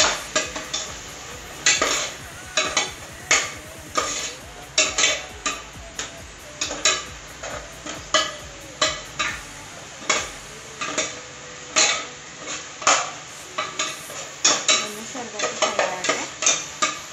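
A metal spatula scrapes and clinks against the inside of an aluminium pressure cooker in irregular strokes, one or two a second, while onion masala sizzles steadily as it fries in ghee and oil.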